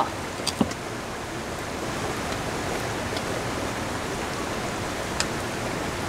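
Steady hiss of rain falling, with a couple of light clicks from metal tongs.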